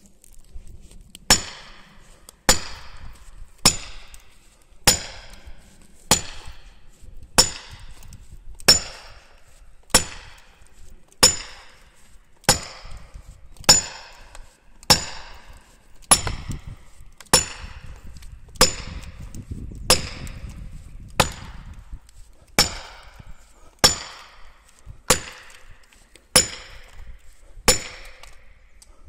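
Felling wedges in the saw cut of a beech trunk being driven with the poll of a splitting axe: about twenty-two sharp strikes, one every second and a quarter or so, each with a short high ring. This is the stage of felling where the wedges are hammered in to tip the tree over.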